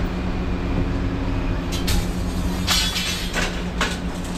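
Busy city street noise: a steady low mechanical hum with a rumble under it, like an idling engine or machinery, broken by a few sharp clacks and knocks in the second half.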